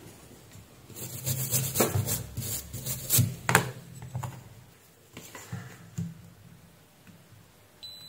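Scratchy scrubbing strokes on a power supply's circuit board, in two spells, as the solder joints are cleaned of flux with isopropyl alcohol. A steady high multimeter beep starts just before the end.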